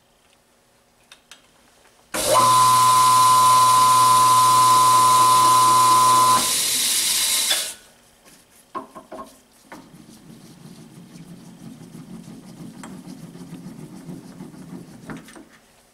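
A loud hissing jet with a steady whistling tone starts about two seconds in and lasts about five seconds, the whistle stopping a little before the hiss. A few clicks follow, then a softer, low rough grinding for about five seconds as a tap is worked into the steel.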